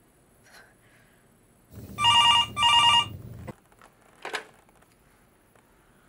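Corded desk telephone ringing: two short rings in quick succession about two seconds in, followed by a short knock a little over a second later.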